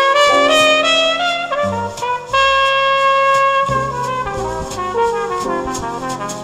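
A song's instrumental passage with no singing, played back through a 4-inch full-range speaker in a wooden cabinet. A chord is held for about a second and a half in the middle.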